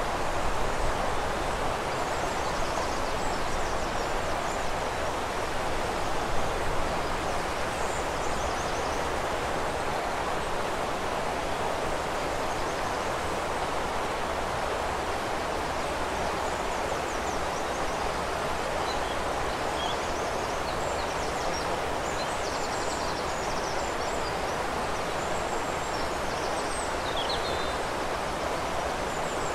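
Steady rush of flowing river water, with faint high chirps and trills of small songbirds now and then, more of them in the second half.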